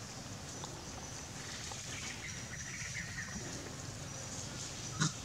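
Forest-floor ambience: a steady background hiss with faint high-pitched calls coming and going, and one sharp click about five seconds in.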